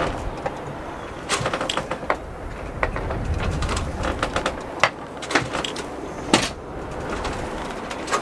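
Irregular knocks, clicks and clatter of deck gear on a small sailing yacht as the crew work at the bow while weighing anchor, over a steady low rumble.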